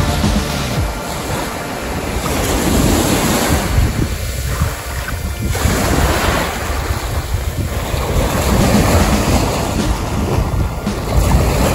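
Small sea waves breaking and washing up a sandy beach, swelling in surges a few seconds apart, with wind buffeting the microphone.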